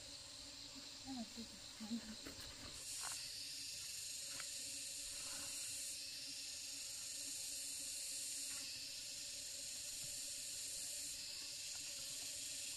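Insects buzzing in a steady high hiss that grows louder about three seconds in, with a few short, faint low sounds near the start.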